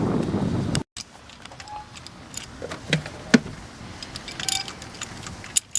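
A loud rush of noise cuts off abruptly about a second in. After it come a few sparse metallic clicks and clinks of a ratchet and socket working on the spark plugs.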